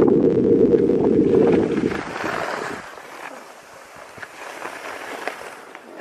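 Wind buffeting the microphone of a skier's camera, a heavy low rumble, with a short hiss of skis on snow about two seconds in. After about three seconds the rumble drops away, leaving a faint hiss with a few light clicks.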